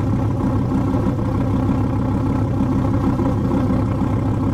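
Dodge Viper's 8.4-litre V10 idling steadily, an even low exhaust note with a fine rapid pulse.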